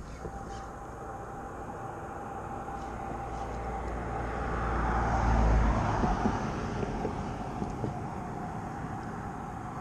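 An aircraft passing overhead: engine noise with a steady whine that swells to its loudest about five to six seconds in, then eases off.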